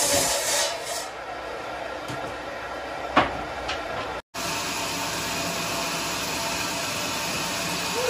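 Band sawmill machinery running with a steady rushing noise while a heavy log is shifted on the saw carriage. There is a single sharp knock about three seconds in, and the sound cuts out for a moment just after four seconds before the steady running resumes.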